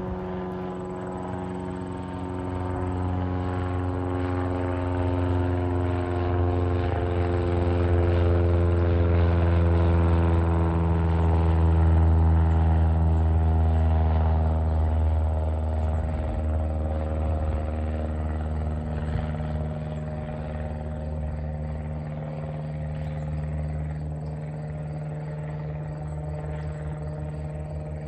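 Single-engine piston light aircraft flying overhead: a steady propeller-engine drone that grows to its loudest about halfway through, then fades while its pitch drops slowly as the plane passes and moves away.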